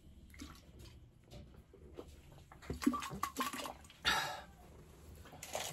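A person drinking from a plastic shaker bottle in soft gulps and swallows, then a breathy exhale about four seconds in after lowering the bottle.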